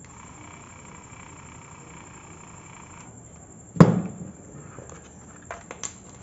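One heavy knock about four seconds in as the wiper motor is knocked against the tabletop, then a few light clicks from handling the multimeter and test leads.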